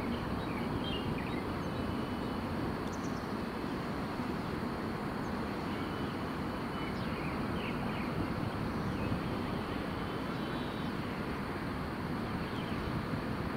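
Steady outdoor background rumble and hiss, with a few faint bird chirps scattered through.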